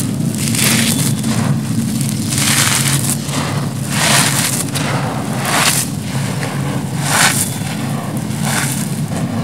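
Dry crushed concrete crumbs and grit crunching and pouring as hands scoop and crumble them, in repeated gritty surges roughly once a second. A steady low hum runs underneath.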